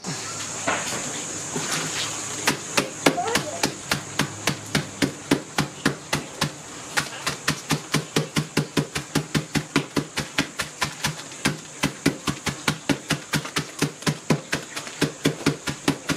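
Rapid, steady pounding, about four blows a second, as a packet of chicken Twisties is beaten with a flat stick on a freezer lid to crush the chips into crumbs. A steady high-pitched whine runs underneath.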